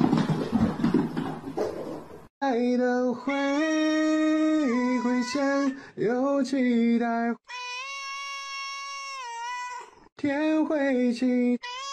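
About two seconds of rough, noisy cat sounds, then a high voice singing a slow melody in long held notes that step from pitch to pitch, with short breaks between phrases.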